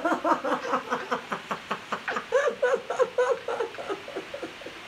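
A woman laughing hard: a long fit of quick, repeated laughs, several a second, that tails off near the end.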